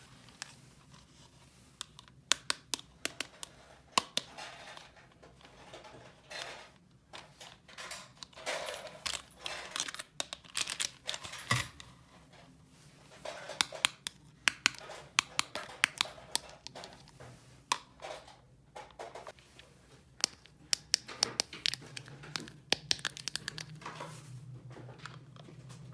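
Hands crinkling and tearing crinkly material, with frequent sharp clicks and taps scattered throughout.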